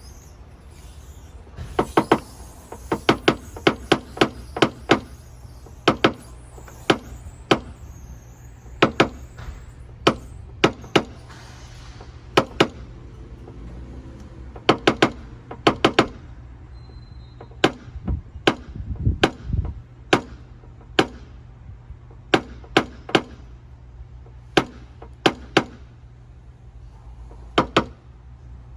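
Paintless dent repair tapping: a small hammer striking a tap-down tool to knock down high spots in a car's body panel, in quick clusters of two to four sharp taps every second or two.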